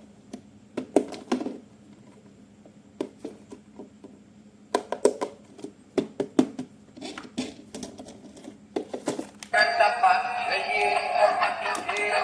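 Scattered clicks and knocks of plastic toy packaging and parts being handled. About three-quarters of the way in, music starts and carries on louder.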